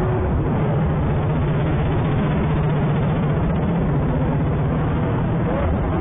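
Busy street noise: traffic and crowd, with a steady low hum that fades out about five and a half seconds in.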